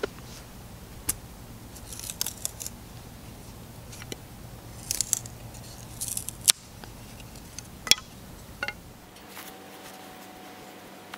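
Steel knife blade cutting and shaving thin wooden sticks: short bursts of rasping, slicing strokes with a few sharp cracks as the wood splits or the blade knocks the stump.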